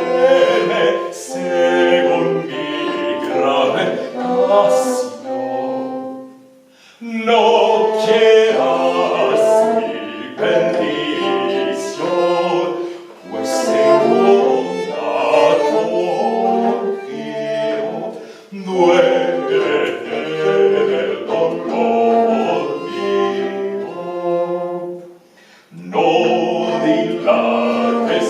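Live early-music trio performing, with bowed strings and singing, in phrases separated by brief pauses about every five to seven seconds.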